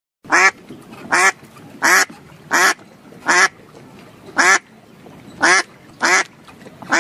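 A duck quacking over and over: about eight loud, short quacks, roughly one a second.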